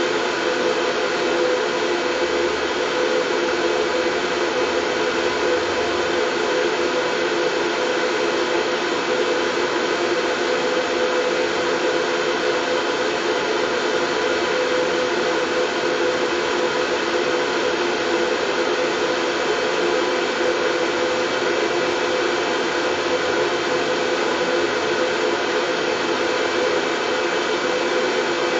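Continuous white noise for lulling a baby to sleep: an even, unchanging rushing hiss with no breaks, a little fuller in the lower middle, like a hair dryer.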